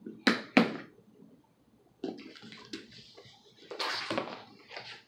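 Two short, sharp rasps near the start, then the rustling and scraping of a cardboard figure box and its paper packing as the box is opened by hand.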